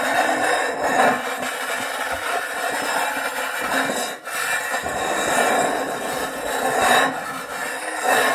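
A sheet of metal sliding and dragging across a surface, a continuous rasping scrape that swells louder about a second in and again near the end, with a brief break about four seconds in.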